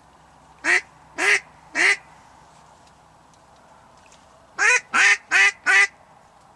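Duck quacking: three loud quacks about a second in, then a quicker run of four near the end.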